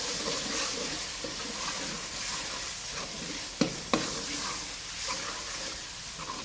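Chopped tomatoes and spice masala sizzling in ghee in a metal karahi, stirred and scraped with a metal spoon. The spoon knocks sharply against the pan twice a little past halfway.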